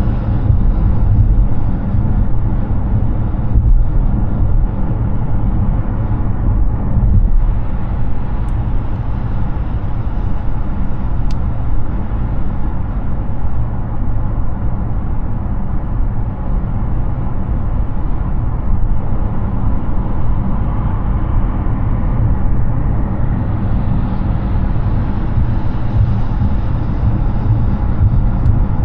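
Steady highway road noise from a Hyundai Ioniq 6 cruising at speed: a deep tyre rumble with rushing wind noise and no engine note, because the car is all-electric. The hiss rises slightly near the end.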